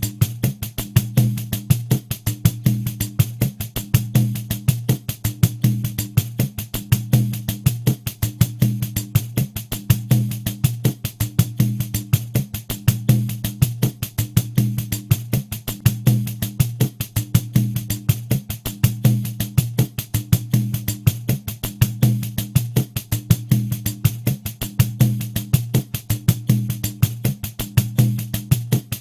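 Pandeiro playing a steady, unbroken groove at 80 BPM, a rapid even run of strokes. The jingles ring on every stroke, and deep open tones from the drumhead fall in a regular repeating pattern.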